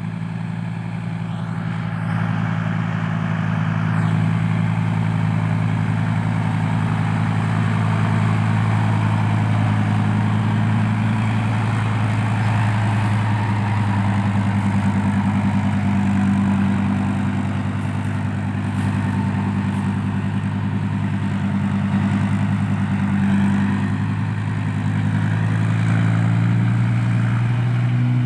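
Heavy diesel engine of earth-moving machinery running steadily, coming up in load about two seconds in and holding with small dips.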